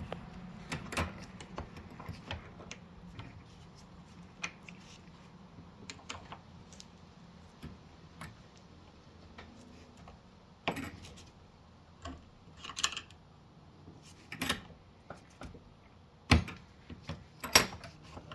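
Scattered clicks and knocks of metal parts and a wood block being handled as a brake hub and its shoes are positioned in a bench vise, with a few louder knocks in the second half.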